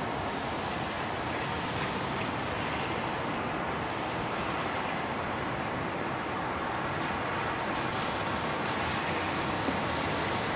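Steady rushing of a distant Airbus A380's four jet engines as it rolls along a rain-soaked runway, blended with the hiss of spray and wind.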